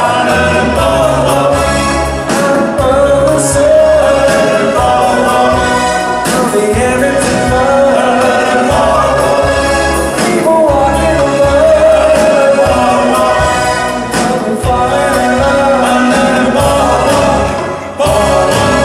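Live rock band playing with a male lead singer and backing voices, over bass guitar, guitars and drums with a steady beat.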